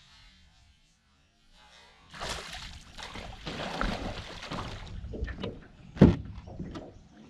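A hooked bass thrashing and splashing at the water's surface beside the boat. The splashing starts about two seconds in and there is a single sharp knock about six seconds in.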